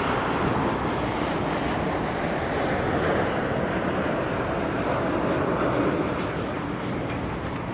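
Jet engines of a departing twin-engine wide-body airliner at takeoff power as it climbs away, a steady noise that eases slightly near the end.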